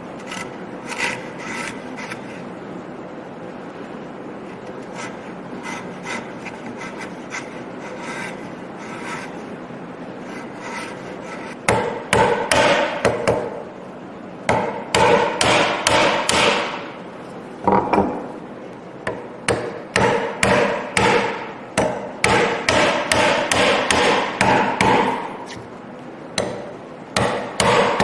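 A steel chisel cutting a half-lap joint in a wooden leg. For about the first eleven seconds there is quiet scraping with a few light taps. About twelve seconds in, a long run of sharp, loud knocks starts, two or three a second, as the chisel chops into the wood.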